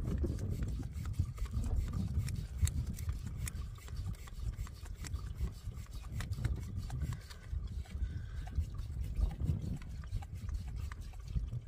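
Hand-operated survival water filter pump being worked, with many small clicks and liquid trickling as water comes through into the bottle. Gusting wind rumbles on the microphone throughout.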